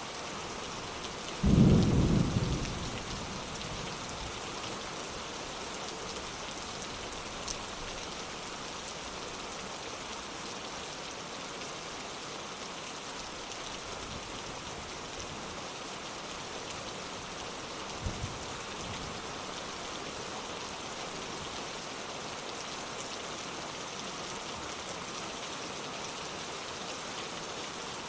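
Steady heavy rain hissing on surfaces, with a loud clap of thunder near the start that rumbles away over a second or two. A fainter, short low rumble of thunder comes about two-thirds of the way through.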